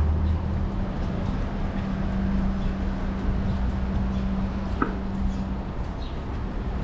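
Downtown street ambience: a steady low engine and traffic hum, with a held tone that fades out about six seconds in. Faint short high chirps come at intervals, and one sharp click sounds near five seconds in.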